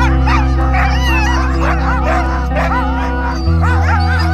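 Many sled huskies in harness yipping and whining together in a dense, overlapping chorus. Background music with sustained low chords plays under it, with a chord change about three and a half seconds in.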